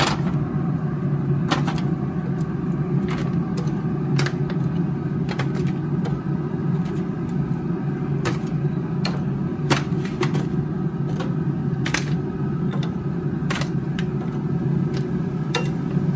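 Metal tongs clicking and scraping against a smoker's grill grate and an aluminium foil pan as ribs are lifted into the pan, many short clicks spread through. Under them runs a steady low hum.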